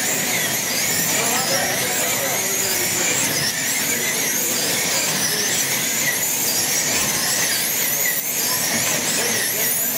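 Wing-class slot cars racing round a multi-lane track. Their small electric motors make many high-pitched whines that rise and fall over and over as the cars speed up and brake through the corners.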